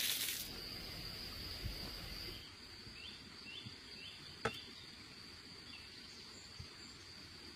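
A steady, high-pitched insect trill in the background, with a few short chirps about three seconds in and one sharp click halfway through. A crinkling sound breaks off right at the start.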